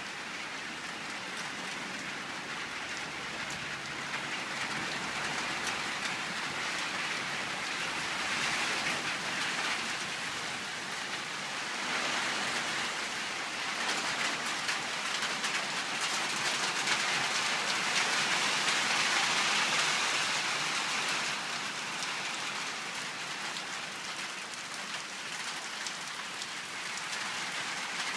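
Steady heavy rain falling on and around a corrugated roof, an even hiss of drops that swells louder twice before easing.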